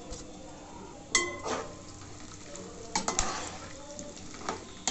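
Tempering spices (chana and urad dal, mustard seeds, curry leaves) hitting hot oil in a steel pan and frying with a steady sizzle. A steel plate clinks against the pan about a second in with a brief ring, and there are more clinks near three seconds and at the end.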